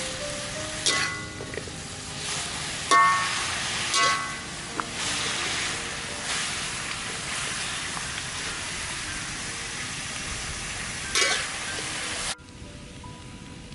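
Pumpkin shoots and leaves stir-frying in a large metal wok: a steady sizzle, with the metal spatula scraping and clanging against the wok several times. The sizzle breaks off abruptly near the end, leaving light background music.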